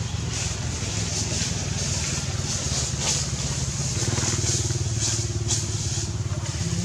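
A motor engine running steadily at low revs: a low, even hum with a rough pulsing texture that strengthens slightly about four seconds in.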